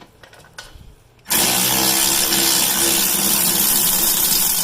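Small cordless battery drill with a socket spinning out a loosened 17 mm brake caliper bracket bolt. A few faint clicks come first, then about a second in the drill starts suddenly and runs steadily with a whine, stopping just before the end.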